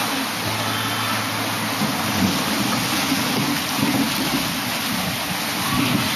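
Steady rushing noise of wind and sea by the shore, with a faint low hum during the first two seconds.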